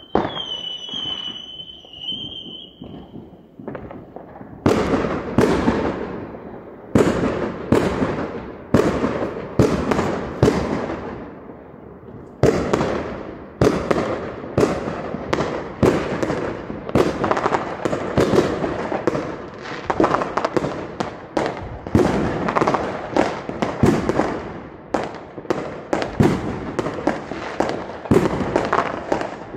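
A dense barrage of fireworks: loud bangs and booms one after another, each trailing off in an echo, with crackling between them. It opens with a high whistle lasting about three seconds before the bangs begin.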